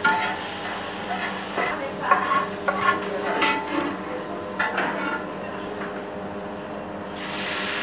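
Garlic paste and whole spices sizzling in hot oil in a large aluminium pot, with a long metal paddle scraping and clinking against the pot as it is stirred. Near the end a loud steady hiss of steam sets in.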